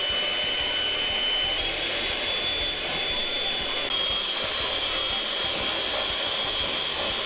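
Electric hand mixer running steadily, its beaters whisking a cake batter of butter, sugar and eggs in a plastic bowl. It has a high motor whine that steps up slightly in pitch twice.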